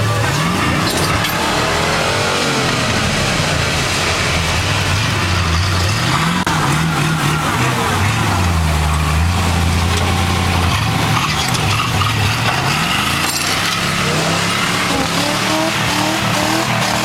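Chevrolet pickup truck engine revving up and dropping back again and again, over a steady rushing noise.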